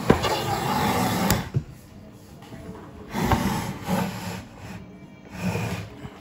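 Rotary axis of a home-built wooden CNC turned by hand with a crank on its shaft, its belt, pulleys and bearings whirring in three short bursts in the second half, after a broader rustle of handling with a sharp knock a little over a second in.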